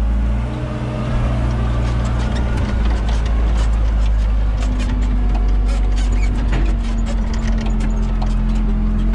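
John Deere 3200 telehandler's diesel engine running, heard from inside the cab as it drives over rough ground, with many short clicks and rattles. The engine note shifts to a steady higher tone a few seconds in.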